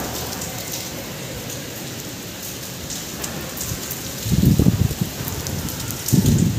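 Heavy rain falling steadily in a storm, with two loud low gusts buffeting the microphone about four and six seconds in.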